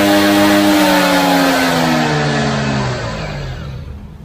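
Yamaha NMAX scooter engine held at high revs, then the revs fall away over a second or two as the throttle is let off, and the engine dies down near the end.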